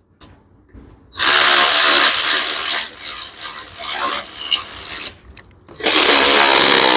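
Ratcheting hand tool clicking rapidly as fasteners on the motorcycle's gearbox case are turned. It starts about a second in and runs in two spells with a short pause near the end.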